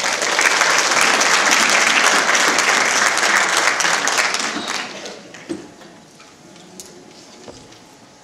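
A congregation applauding, fading away about five seconds in and leaving a quiet hall.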